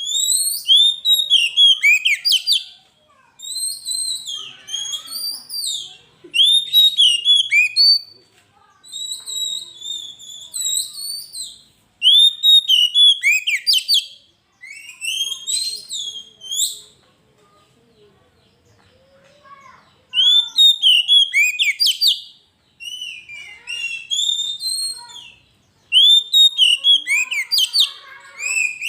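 Oriental magpie-robin (kacer) singing in full song: loud bursts of rapid, sweeping whistled phrases, one after another, with a pause of a few seconds past the middle.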